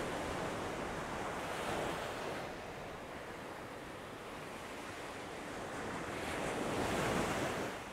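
Ocean surf breaking and washing up a sandy beach, surging louder near the start and again near the end as waves come in.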